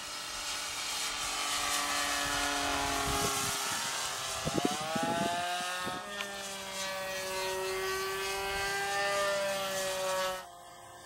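Model P-51 RC plane's motor and propeller droning in flight, the pitch rising sharply about halfway through and then swelling and falling as the plane passes. The sound drops away suddenly near the end.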